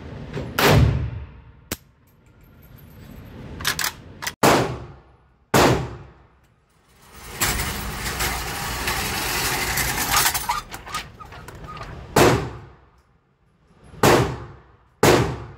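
About six single gunshots from an AK-pattern pistol (Palmetto State Armory AKP) with a muzzle brake, irregularly spaced, each followed by a long reverberant tail in an indoor range. Between the shots there are a few seconds of steady rushing noise.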